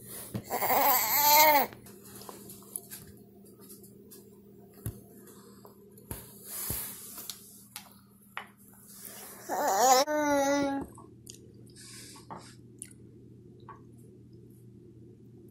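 Toddler babbling in two short high-pitched stretches, about a second in and again near ten seconds, with scattered small clicks between them over a steady low hum.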